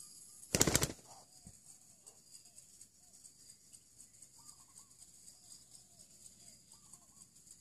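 Spotted doves cooing faintly at intervals, over a steady high-pitched hum. About half a second in comes one short, loud flurry of rapid beats.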